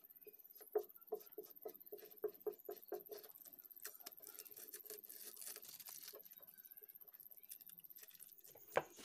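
Faint run of small clicks and light scraping from hand work on vinyl sticker lettering and a cutter against an e-rickshaw's painted metal body panel, about three clicks a second for a couple of seconds, then sparser ticks and rustling. A steady high electronic whine sits underneath.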